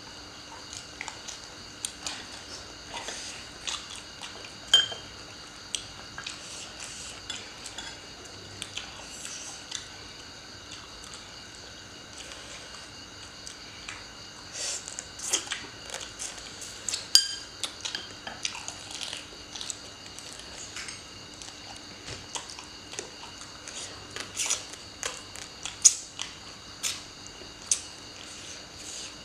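Chopsticks, spoons and serving tongs clinking and tapping against plates, bowls and a metal serving tray during a meal, in irregular light clicks with a few sharper clinks. A faint steady hum runs underneath.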